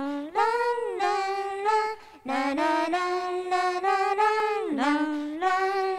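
A high voice singing unaccompanied: long held notes with vibrato, sliding from one pitch to the next, with a brief break about two seconds in.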